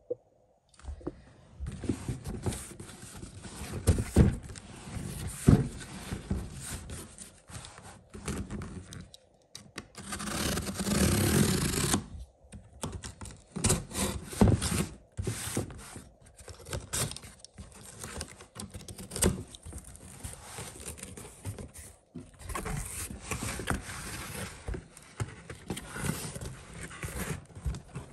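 Cardboard shipping box being handled and opened: irregular rustling, scraping and knocks of cardboard, with a steady rasp lasting about two seconds around the middle.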